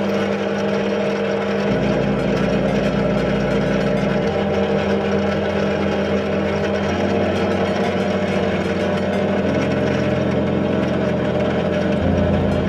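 Drill press motor running steadily as a small bit cuts into a steel plate. Its hum changes abruptly to a new pitch every two to three seconds.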